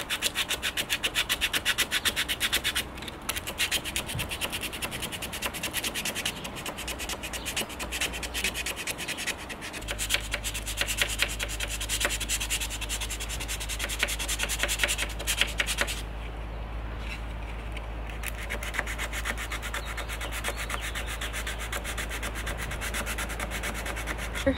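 Folded sandpaper rubbed by hand along the edge of a walnut-veneered dresser panel, quick back-and-forth strokes scraping off the old finish. The strokes give a fast, rhythmic rasp that turns into a softer, steadier rasp about two-thirds of the way through.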